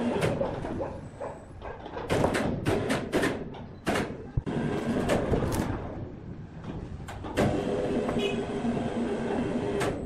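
Sawmill log carriage and its handling gear clanking, knocking and rumbling on the rails as a huge mahogany log is shifted and turned into position. About seven seconds in, a machine motor starts and runs with a steady hum.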